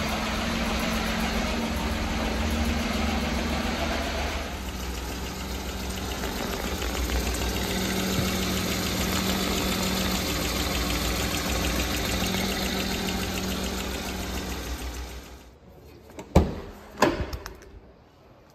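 1997 Daihatsu Hijet S110P kei truck's 660 cc three-cylinder engine idling steadily. The engine sound dies away near the end, followed by two sharp knocks less than a second apart.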